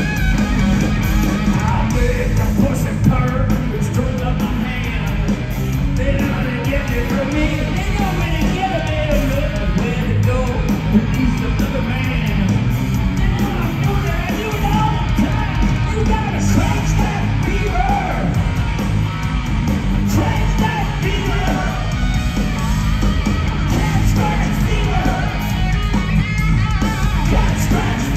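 Loud live hard rock band: overdriven hollow-body electric guitar played through stage amplifiers over a pounding drum kit and bass.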